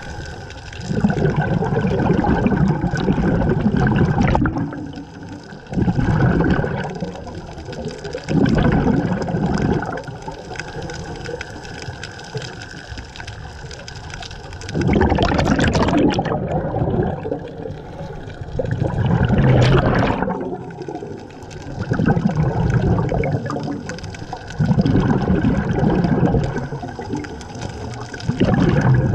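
Scuba diver breathing through a regulator underwater: a gurgling rush of exhaled bubbles every few seconds, with a longer pause about halfway through.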